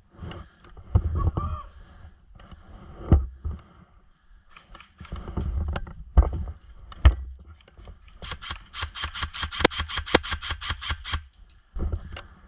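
Footsteps and rustling through leaf litter with a few heavy thumps, then about eight seconds in a rapid, even burst of airsoft rifle fire lasting about three seconds: an electric M4-style airsoft gun on full auto.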